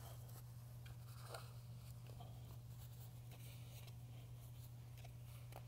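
Faint rubbing and rustling of a rag wiping drips of epoxy resin off the side of a mixing bucket, with a few light ticks, over a steady low hum.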